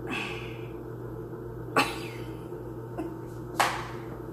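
Hands working a raw, partly frozen whole chicken in a stainless-steel sink: a brief rustle at the start, then two short, sharp wet smacks, the louder one near the end, over a steady low hum.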